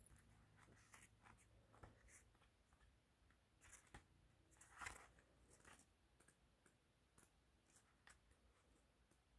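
Near silence with faint, scattered rustles and light clicks from a paperback guidebook being handled and paged through; the loudest rustle comes about five seconds in.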